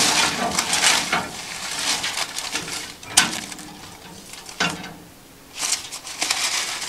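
Hand-cranked wire-mesh raffle drum turning, its paper entry slips tumbling and rustling over the rattle of the crank, dying away about two and a half seconds in. Then a sharp metal click, and short bursts of paper rustling as the drum's door is opened and the slips are handled.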